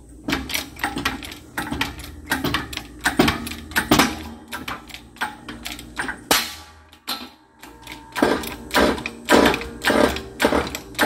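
Hydraulic shop press being pumped by its bottle-jack handle: a run of repeated clicking, clanking strokes with a short pause a little past halfway. It is pressing a new tapered roller carrier bearing onto a differential spool.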